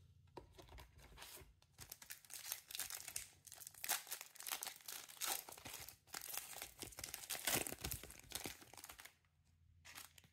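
Foil wrapper of a 2024 Donruss Elite football card pack being torn open and crinkled by hand: irregular crackling and tearing that stops about a second before the end.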